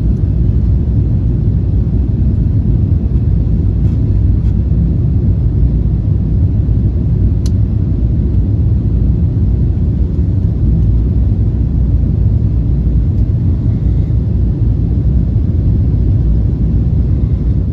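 Steady low rumble of cabin noise inside an airliner in flight after take-off, with one faint click a little before the middle.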